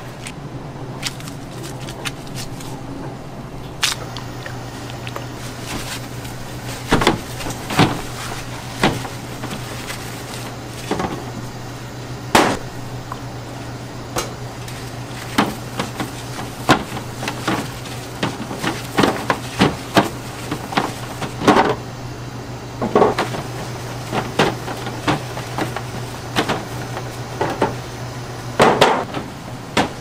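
Pizza-kitchen food-prep sounds: irregular knocks, taps and clatters, coming more often after the first few seconds, over a steady low hum of kitchen equipment.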